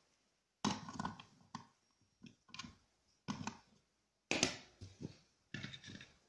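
Plastic clicks and knocks from handling a Ryobi ONE+ 18V battery pack. The cell pack with its circuit board is set into its plastic housing on a hard table, giving about a dozen irregular taps and clatters.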